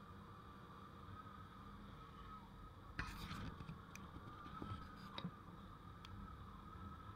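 Faint ride noise of a motorbike picked up by an action camera: a steady low rumble with a thin steady whine. A few sharp clicks or knocks, the loudest about three seconds in, then three more about a second apart.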